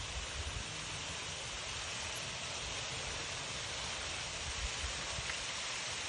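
Outdoor ring fountain's water jets falling and splashing into the basin, a steady rushing hiss. A few low bumps sound near the start and again about four and a half seconds in.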